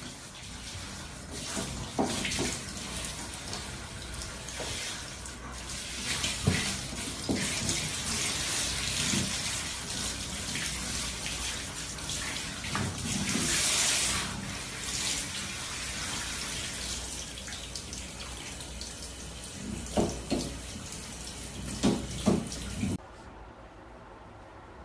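Hand-held shower head spraying water onto a dog's coat, a steady hiss of running water that is loudest about halfway, with a few short knocks. It cuts off suddenly about two seconds before the end.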